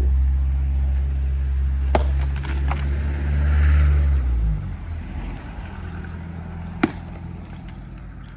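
A motor vehicle's engine running close by, with a low rumble that builds to about four seconds in and then drops away. Two sharp knocks come through, about two seconds in and again near seven seconds.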